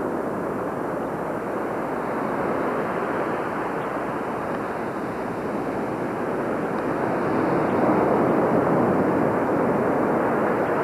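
Ocean surf washing up on the beach: a steady rushing that grows louder about three-quarters of the way through as the waves come in.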